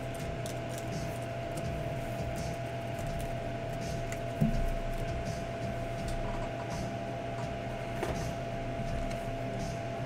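Trading cards and plastic card holders being handled: faint scattered clicks and rustles, with one brief soft thump about four and a half seconds in, over a steady electrical hum.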